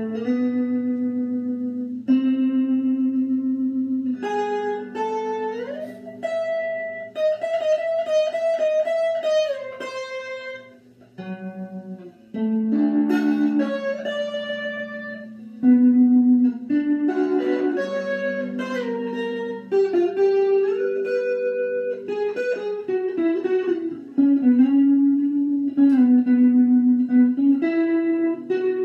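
Unaccompanied electric guitar played as a slow improvised lead: single sustained notes joined by slides and bends, some held with a wavering vibrato. The playing drops off briefly about a third of the way through.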